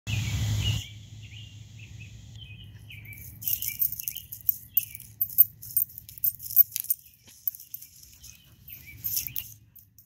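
Short chirping calls in a wet spring woodland. From about three and a half seconds in, a run of sharp high crackles rises over them and is the loudest sound. A brief loud burst of noise opens the clip.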